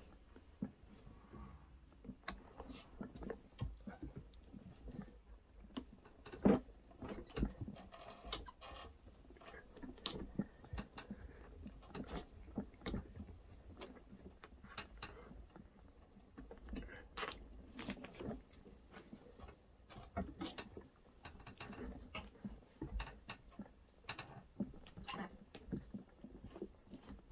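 Rubber tire being forced by hand over the rim of an Inmotion V12 electric unicycle wheel: irregular rubbing, creaking and small knocks as the bead is worked on, with one sharper knock about six seconds in.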